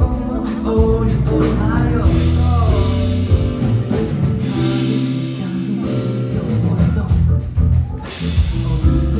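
Live band playing a pop-rock song on guitar and drums, with a voice gliding through melody lines that carry no clear words.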